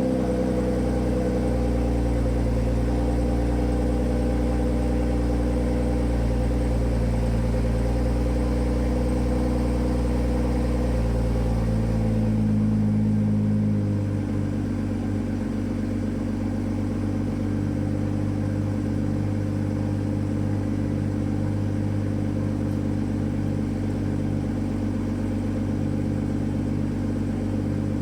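BMW M340i's 3.0-litre turbocharged straight-six idling just after a cold start: the fast cold idle sinks slowly lower, then about halfway through it steps down to a quieter, lower idle that holds steady.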